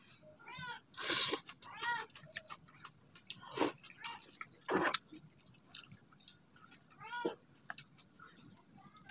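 Metal spoon and fork mixing chicken noodles in broth in a plastic bowl: scattered clinks and wet slops, with a few short high squeaks.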